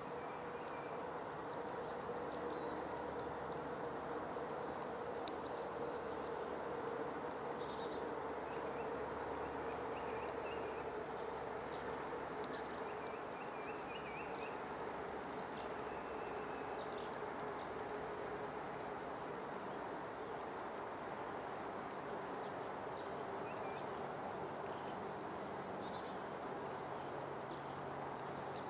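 Steady chorus of crickets trilling in several high, unbroken tones, with a few faint short chirps here and there.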